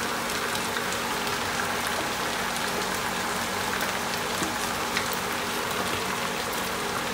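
Chicken pieces frying in a nonstick pan with a steady, even sizzle, with a few faint ticks.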